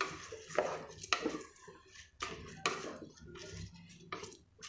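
A spatula stirring soaked rice in oil inside a metal pressure cooker pot. It makes a run of irregular scrapes and knocks against the pot, about eight strokes.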